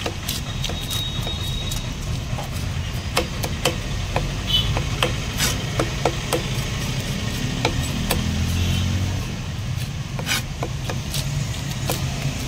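Large knife cutting and cleaning Indian mackerel on a stone cutting block: irregular sharp knocks and scraping as fish and blade strike and rub the block. A steady low rumble runs underneath.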